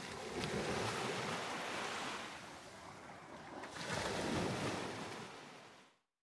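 Sea surf washing up a sandy beach, swelling twice, the second surge about four seconds in, then fading out near the end.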